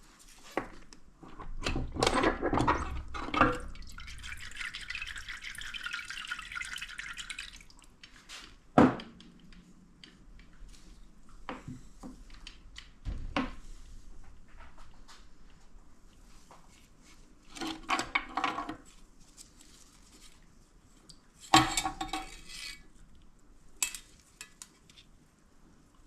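Metal transmission parts clinking and knocking as they are handled and set down, in scattered clusters with one sharp knock near the middle. A steady hiss runs for about three and a half seconds early on.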